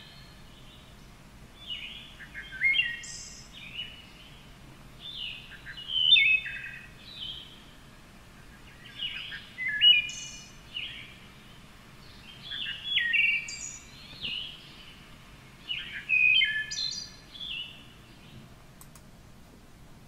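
Recorded wood thrush song played back through a computer speaker: five separate phrases, about three to four seconds apart. Each mixes lower, louder notes with a buzzier high part sung at the same moment, the bird using the two sides of its voice box at once.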